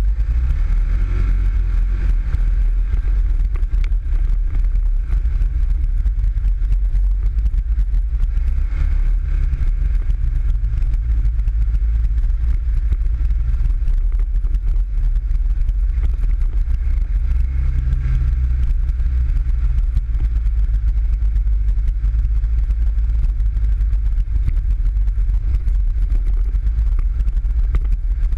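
PGO 500i off-road buggy's engine running under way on a dirt trail, a steady low drone with slight changes in revs, heard from the driver's seat.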